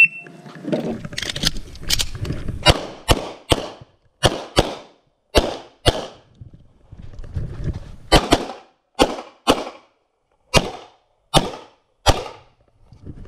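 A shot timer beeps once to start, then a pistol fires about fifteen shots, mostly in quick pairs with short pauses between groups, each shot ringing off the range walls.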